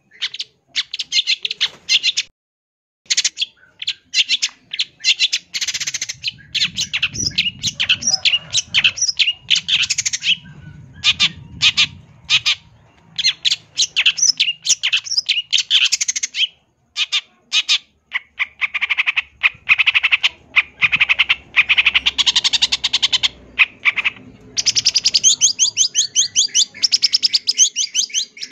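Long-tailed shrike (cendet) singing without pause: a fast, dense run of short chirps, harsh chatter and quick trills, the varied 'isian' song used as a training recording for cage birds.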